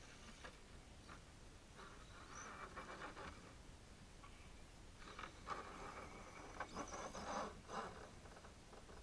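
Radio-control crawler truck driving in faint short bursts, its motor and drivetrain whirring as it climbs a dirt mound.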